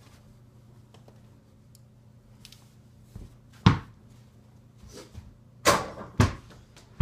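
A tennis ball knocking on hard surfaces as it is bounced and shot at an over-the-door mini basketball hoop: one loud knock about halfway through and two more near the end, over a faint steady hum.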